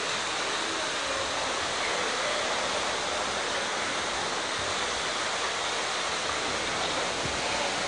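Floodwater rushing steadily along a railway track bed, surging over the ballast, sleepers and rails.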